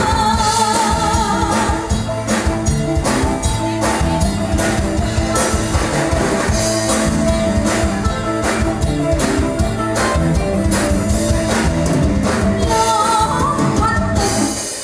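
Live band playing a Thai song: a woman sings into a microphone over a steady drum beat, with keyboard and guitar. The singing is heard near the start and again near the end, with instrumental playing in between.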